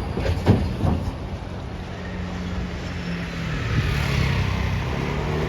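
Road vehicle sounds: a few sharp knocks in the first second, then a vehicle running with a steady low hum over a wash of traffic noise, which swells about four seconds in as it passes.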